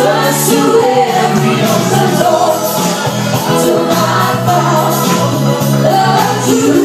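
Loud backing music with live singing, the performers singing into handheld microphones.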